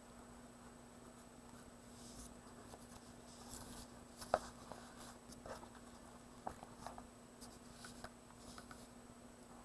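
Faint scratching of someone writing, in short irregular strokes, over a steady low hum.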